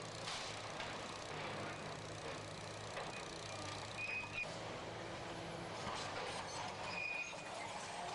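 Demolition machinery at work: a heavy engine running steadily under irregular clattering and knocking of debris, with two brief high squeals about four and seven seconds in.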